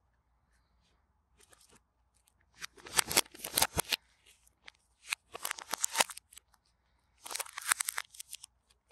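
A smartphone's thin plastic protective film crinkling and crackling as gloved hands wrap it around the phone, in three spells of crinkling about two and a half, five and seven seconds in.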